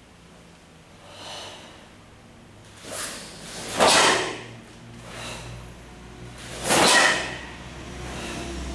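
Sharp swishes as a karateka performs the kata Suparinpei, with two loud ones about four and seven seconds in and fainter ones between.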